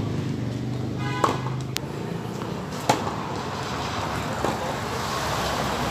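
Tennis balls struck by rackets in a baseline rally: sharp pops about every one and a half seconds, alternating between the near and the far player, over a steady background hiss.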